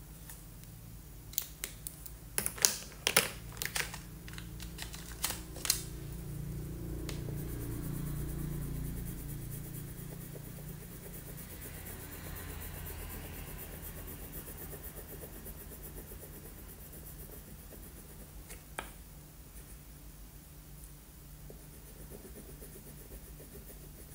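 A run of sharp clicks and taps in the first six seconds, then the soft scratchy rubbing of a crayon colouring on paper, swelling and fading over several seconds, with one more click near the end, over a steady low hum.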